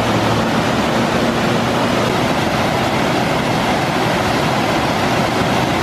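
Steady rushing of a waterfall. A vehicle engine's low hum runs under it for the first two seconds.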